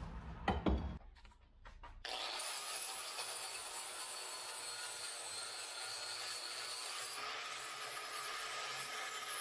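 A couple of knocks, then, about two seconds in, a 4½-inch DeWalt angle grinder with a flap disc starts grinding the steel edge of a finish-mower blade clamped in a vise, sharpening it, in a steady, even grind.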